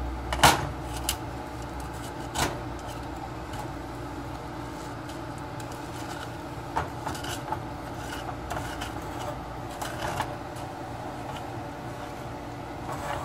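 Wooden spoon scraping and knocking against a stainless steel saucepan while stirring sugar as it melts into caramel, with scattered knocks, the loudest about half a second in, over a steady hum.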